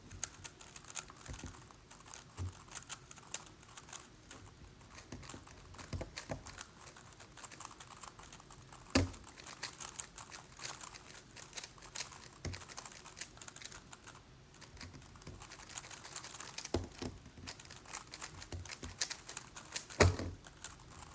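Megaminx being turned rapidly in a speedsolve: a dense, uneven run of plastic clicks and clacks, with a few sharper knocks.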